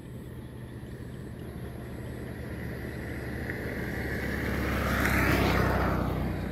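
A motor vehicle passing by: its engine and road noise swell steadily to a peak about five seconds in, then fade as the pitch drops while it goes past.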